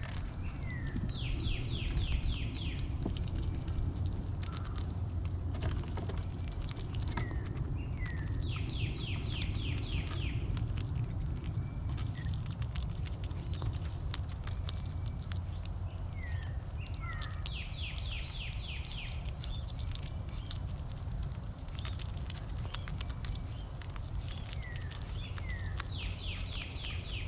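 A songbird repeats the same short song about every eight seconds: one or two falling whistled notes, then a fast run of about seven notes. Between songs come light, irregular clicks of a gray squirrel cracking and handling seeds on a wooden feeder table, over a steady low background rumble.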